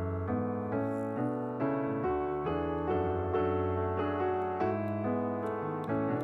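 Background piano music: a gentle melody of held notes, with the notes changing every half second or so.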